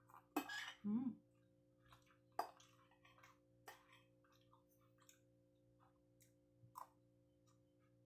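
Close, quiet eating sounds: a short breathy mouth sound about half a second in, then small mouth clicks and chewing with a few sharper clicks of a fork and spoon on a ceramic plate, over a faint steady hum.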